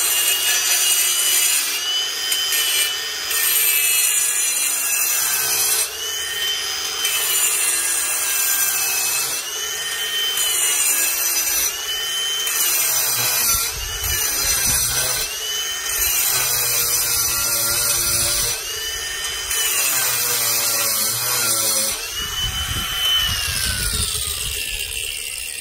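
Ryobi P423 brushless angle grinder with a diamond wheel grinding concrete: a high motor whine that sags in pitch each time the wheel bites under load, roughly every two seconds, over the rasping scrape of the wheel on the concrete. Near the end the whine drops as the motor winds down.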